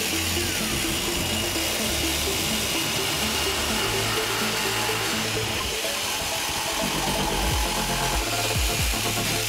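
Electric jigsaw running and cutting through a wooden block, under background music with a stepping bass line.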